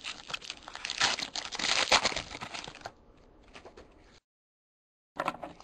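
Foil wrapper of a trading card pack crinkling and tearing as it is ripped open. It fades to faint card handling about three seconds in, then the audio cuts out completely for about a second near the end.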